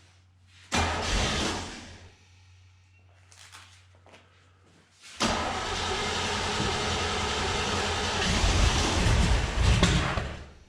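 Willys Jeep engine being started: a short burst of cranking and firing about a second in, then about five seconds in it catches and runs, getting louder and revving up near the end before stopping. This is the engine running again on a freshly fitted ignition coil, rotor and spark plug wires.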